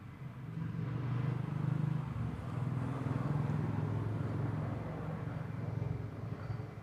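A motor vehicle engine running steadily as a low hum. It swells about a second in and eases off near the end.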